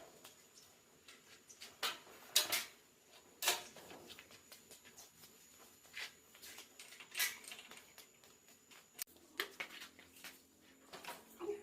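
Irregular hard metallic clinks and short scrapes, like tools and metal parts being handled and set down during bicycle repair work. They come about eight times, clustered in a few groups.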